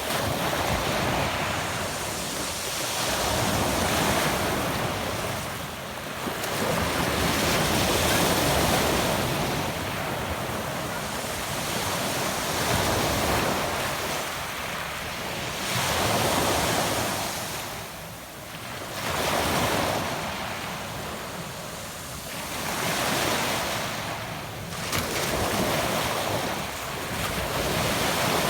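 Small Adriatic Sea waves breaking and washing up a pebble beach, swelling and ebbing about every four seconds.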